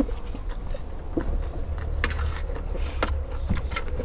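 Metal spoons clinking and scraping on metal trays of fried rice: scattered sharp clicks over a steady low hum.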